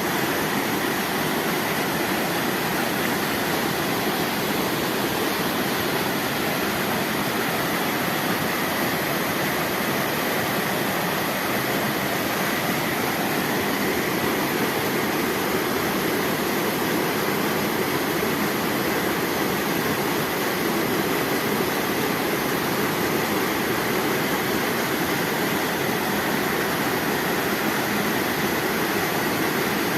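River waterfall rushing, a steady even roar of falling water.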